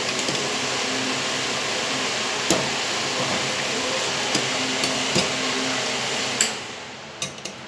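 Steel ladle stirring thick millet-and-buttermilk raab in a steel pot, knocking against the pot a few times, over a steady rushing noise that drops away about six and a half seconds in.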